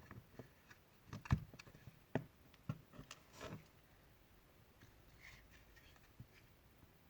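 Small clicks and knocks of hard plastic clipper parts being handled and fitted together: a cluster of sharp taps in the first half, the loudest about a second and a half in, then fainter handling.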